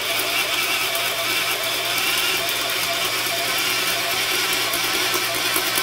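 Milwaukee 0222 3/8-inch corded drill running steadily under heavy load, driving a 1-inch ship's auger bit through a wooden beam.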